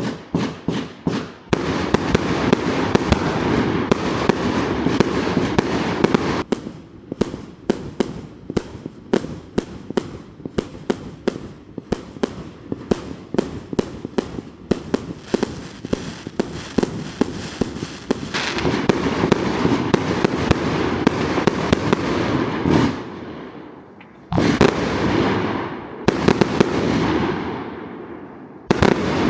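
Fireworks going off in a rapid barrage: sharp bangs several times a second over a dense crackle. Near the end it drops off briefly, then a few single big bursts each fade out.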